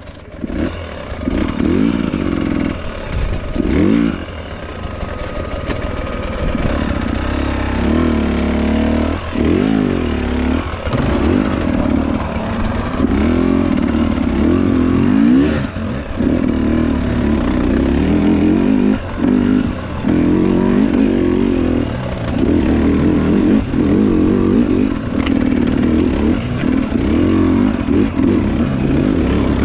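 Enduro dirt bike engine being ridden, its pitch rising and falling continually as the throttle is worked, with short dips every few seconds where the throttle closes or a gear changes.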